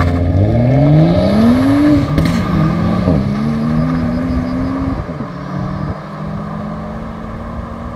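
Two cars accelerating hard from a standing start in a drag race, one a BMW 3 Series sedan. The engine note rises, drops at a gear change about two seconds in, rises again, then holds and fades as the cars pull away into the distance.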